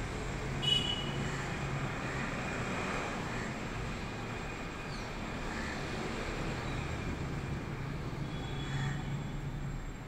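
Steady outdoor city background rumble, like distant traffic, with a short high chirp about a second in and another faint one near the end.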